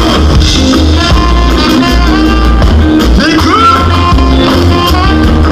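Live ska band playing loud: a horn section of saxophones and trombone over a heavy, repeating bass line, with a rising glide in the melody about three seconds in.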